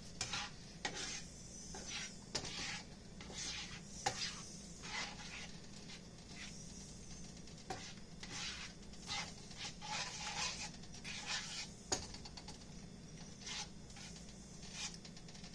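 Utensil scraping and tapping in a frying pan while stirring and scrambling an egg into the fried rice: an irregular run of short scrapes and light clicks.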